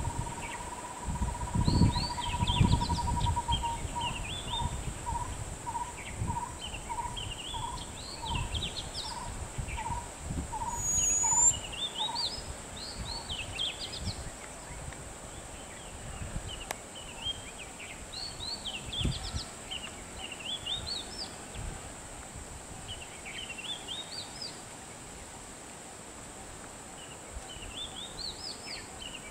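Birds singing, repeated short chirping phrases over a steady high-pitched hiss. Near the start a steady tone breaks into evenly spaced pips about twice a second that fade out around twelve seconds in, and a few low thumps come in the first few seconds.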